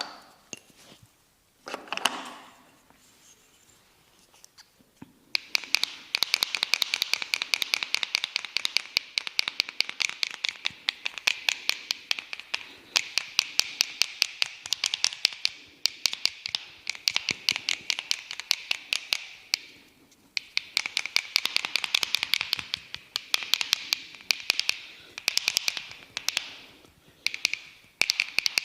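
Rapid rhythmic massage tapping: quick, crisp taps in long even runs that start about five seconds in and pause briefly twice near the end. A few soft rustles come before them.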